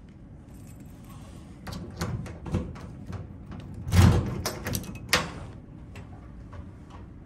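Locker door being handled: a run of clicks and knocks, a heavy thud about four seconds in, and one last sharp knock a second later.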